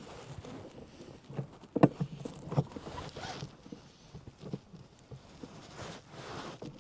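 Tools and parts being handled: scattered knocks and clicks, the loudest about two seconds in, with a few short rustles.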